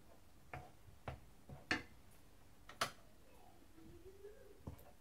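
Wooden spatula knocking and tapping against the side of a non-stick wok while stirring a curry in coconut milk: about six sharp, irregular clicks, the loudest a little before the halfway point.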